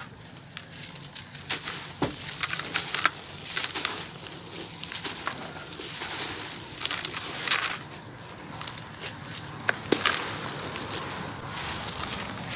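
Hands crushing and crumbling lumps of sand-cement mix in a bucket: gritty crunching and crumbs pattering back in, in uneven bursts with scattered sharp clicks.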